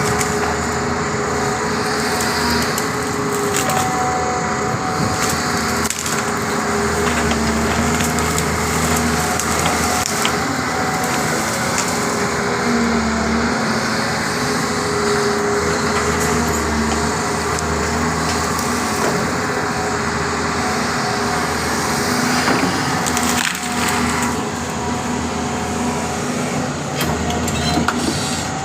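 Doosan 225 hydraulic excavator's diesel engine running under load while mango tree wood cracks and splinters as it is broken apart.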